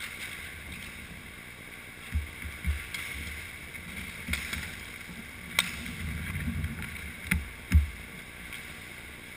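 Inline hockey play around the goal, heard from a camera on the net: scattered low thumps and a few sharp clicks over a steady rink hiss. The loudest thump comes near the end.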